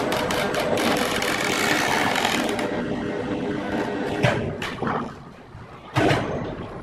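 Steady machine noise for the first two or three seconds, then heavy thumps as a large squared log is set down on a strap onto the blocks of a sawmill log carriage: a strong thump about four seconds in, a lighter one just after, and another strong one about six seconds in.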